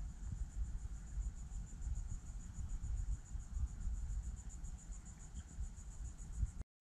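Insect song from the mangroves: a high, steady trill pulsing rapidly and evenly, over a low rumble of wind on the microphone. It cuts off suddenly near the end.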